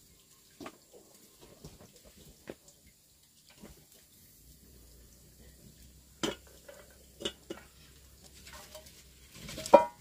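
Pots, dishes and utensils clinking and knocking, with a few sharper clanks in the second half and the loudest, ringing clank just before the end.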